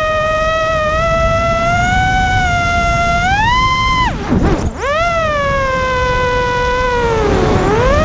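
ImmersionRC Vortex 250 Pro racing quadcopter's motors and propellers whining in flight, heard from its onboard camera. The pitch rises a little past three seconds as the throttle goes up for a climb, drops sharply for a moment near the middle as the throttle is chopped, then settles lower and dips again near the end. A low rumble of wind from the prop wash runs underneath.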